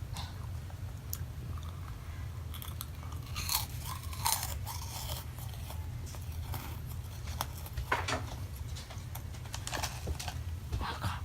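Crunching bites and chewing of crisp meringue cookies close to the microphone, in irregular crackles, with a steady low hum underneath.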